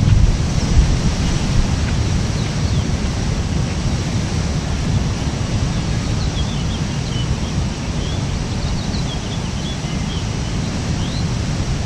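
Wind buffeting the microphone over the wash of surf on a rocky shore, a steady low rumble. A few faint, short, high chirps come through in the second half.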